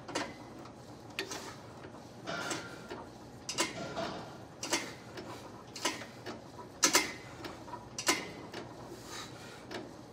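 Chest press machine clicking and knocking in time with its repetitions, a short sharp sound about once a second.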